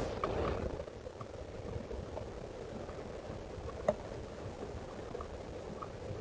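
Steady background hiss and low rumble picked up by a trail camera's microphone outdoors, with a brief rustle as the recording begins, scattered faint ticks and one sharp click about four seconds in.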